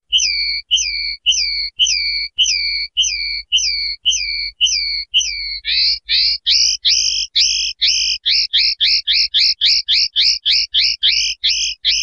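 Common linnet singing a run of evenly repeated short whistled notes, about two falling notes a second. About halfway through it switches to a faster run of about four notes a second, and the song stops at the end.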